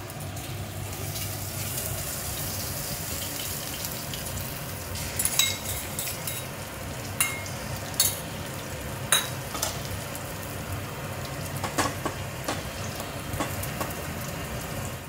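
Beaten egg frying in hot oil in a non-stick kadai, with a steady sizzle throughout. In the second half, a metal spatula clinks and scrapes against the pan about half a dozen times as the egg is stirred and scrambled.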